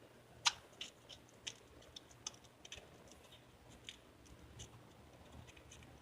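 Scissors snipping and crunching through a ping pong ball's thin plastic shell: a series of irregular sharp clicks, the loudest about half a second in.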